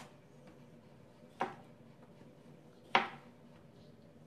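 Kitchen knife knocking on a plastic cutting board twice, about a second and a half apart, the second knock louder, as cherry tomatoes are cut in half.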